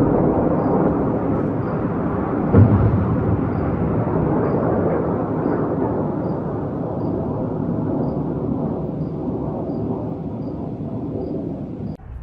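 Distant missile explosion: a sudden boom about two and a half seconds in, followed by a long rolling rumble that slowly fades and then drops away abruptly at the end.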